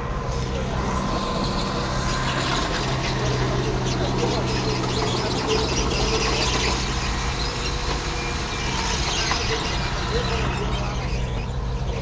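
Diesel engine of heavy earthmoving machinery running steadily, with a rough, high scraping and clattering noise over it that swells soon after the start and fades near the end.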